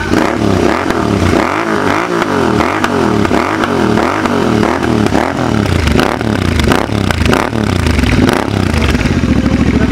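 Royal Enfield Interceptor 650's 648 cc parallel-twin engine revved hard through an aftermarket Mototorque exhaust with the dB killer fitted. The pitch rises and falls in quick repeated throttle blips, about twice a second, and evens out near the end.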